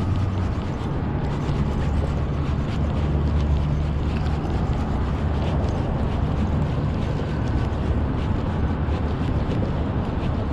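Steady low rumble of highway traffic, with low hums that drift in pitch as vehicles pass.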